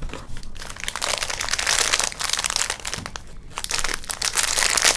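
A plastic snack wrapper crinkling in the hands as a small cardboard box of biscuits is opened and the inner packet is pulled out. The crackling comes in uneven spurts from about half a second in.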